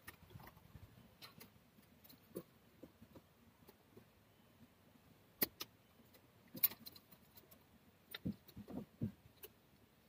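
Faint, scattered clicks and rattles of plastic wiring-harness connectors and small hand tools being handled under a car's dashboard, with two sharper clicks a little past the middle and a short flurry near the end.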